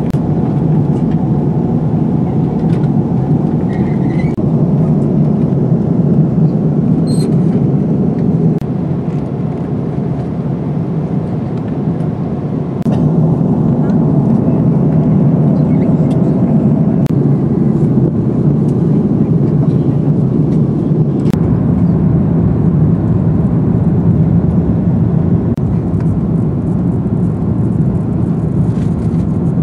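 Jet airliner cabin noise in flight, heard from a window seat: a steady low rush that dips slightly and steps back up about thirteen seconds in.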